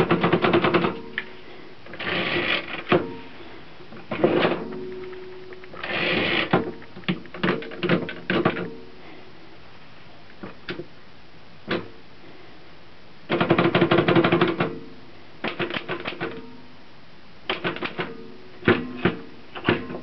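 L.C. Smith & Corona No. 10 manual typewriter being typed on in short runs of keystrokes, the typebars clacking against the platen. The carriage is worked by its return lever between runs.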